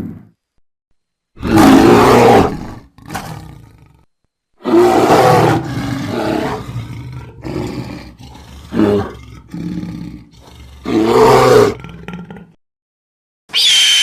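Loud, big-cat-like animal roars in separate bursts: one about a second and a half in with a shorter one after it, then a long run of roars from about four and a half seconds until near the end.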